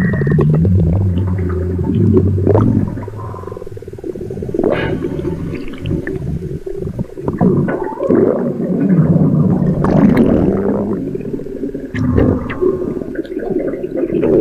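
Stomach rumbling: a run of low, pitched growls that waver in pitch, broken up by gurgling squelches, with the longest growls at the start and again about two thirds of the way through.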